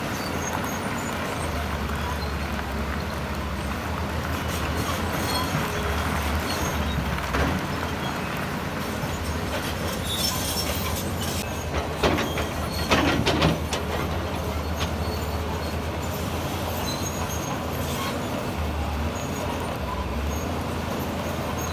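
Diesel engine of heavy construction machinery running steadily, with a short cluster of loud clanks and knocks a little past halfway through.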